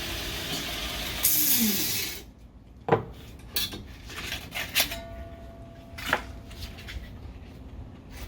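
Belt grinder sanding a steel spike on a 120-grit belt, with a louder, hissier grinding stretch about a second in. The grinding stops about two seconds in, and a few sharp metallic clanks and knocks follow as the belt is swapped.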